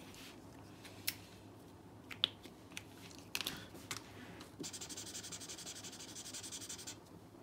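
Felt-tip marker writing in quick, even strokes for about two seconds in the second half, after a few sharp clicks and taps of the marker in the first half.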